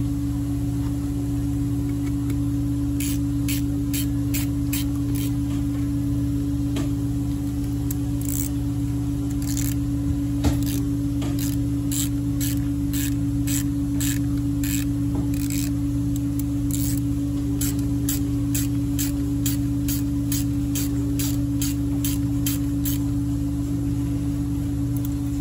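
Steady workshop hum throughout, over a run of light metallic clicks and ticks from a screwdriver turning small screws in an engine crankcase, with one sharper knock about ten seconds in.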